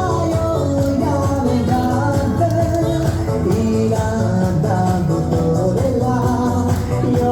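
A song: voices singing over instrumental backing with a steady bass.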